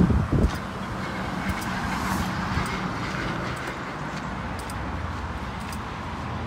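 Road traffic: cars driving past on a road, a steady tyre and engine noise that swells about two seconds in. A few heavy low thumps at the very start, like wind buffeting the microphone.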